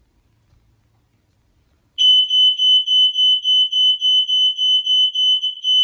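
Smoke detector's piezo horn sounding on its test button: a loud, piercing high-pitched tone that pulses quickly, about five times a second. It starts suddenly about two seconds in.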